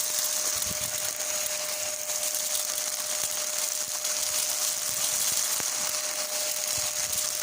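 Dyson upright vacuum cleaner running steadily through a long spare hose as it sucks debris out of a gutter: a constant mid-pitched whine over a hiss.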